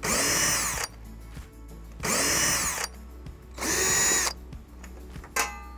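Cordless drill-driver backing out the trim screws that hold an RV water heater's frame to the outer wall. It makes three short runs of under a second each, and the motor spins up and winds down on every run. A short click comes near the end.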